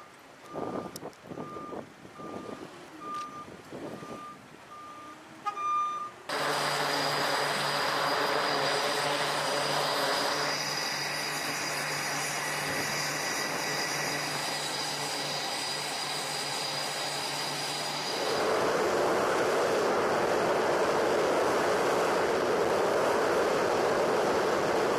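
Short repeated beeps on one pitch, about one and a half a second, with scattered knocks. About six seconds in, the steady hum and whine of an SH-60 Seahawk helicopter's turbine engines starting up takes over. At about eighteen seconds it gives way to a louder, even rush of jet engine noise.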